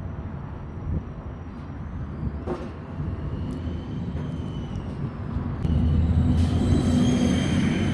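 Low steady rumble of background vehicle noise, growing louder about six seconds in, with a faint high whine over it.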